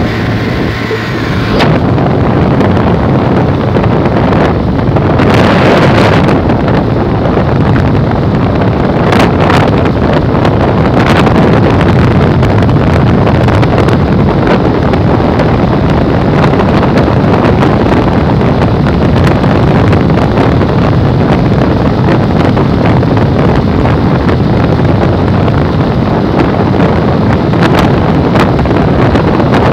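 Heavy wind rush on the microphone with tyre and road noise from a Yamaha motorcycle travelling at highway speed, about 115 km/h. It grows louder about two seconds in, with a few stronger gusts later on.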